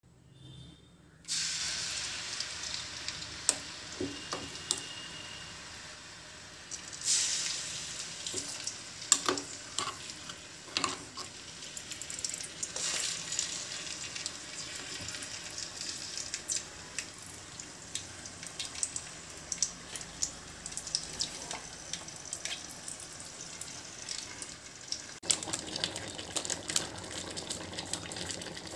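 Oil sizzling and crackling in a cooking pan as ginger-garlic paste and then chicken fry, starting about a second in, with scattered sharp clicks.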